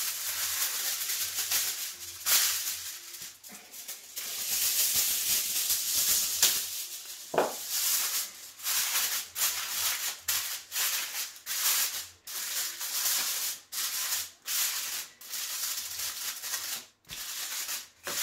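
Aluminium foil crinkling and rustling as a sheet is spread over a metal roasting tray and pressed down to seal it. A continuous rustle gives way, about eight seconds in, to many short separate crinkles as the foil is crimped around the tray's rim.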